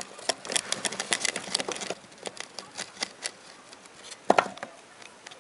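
Netherland Dwarf rabbit gnawing and nosing a dried loofah sponge: a quick run of dry crackling clicks that thins out after about two seconds, then one louder knock about four seconds in as the loofah is shoved over.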